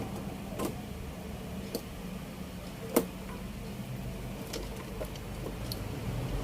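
Scattered small clicks and taps from hands working on a TV chassis at a bench, with one sharper knock about three seconds in, over a steady low hum.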